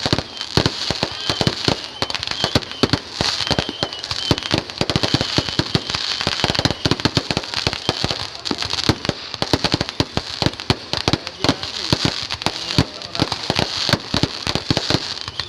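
Fireworks and firecrackers going off in a dense, irregular barrage of sharp bangs and crackles, many a second, over a steady high hiss.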